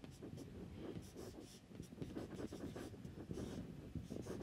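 Marker pen writing on a whiteboard: faint, short strokes in quick succession, with a brief pause a little under two seconds in.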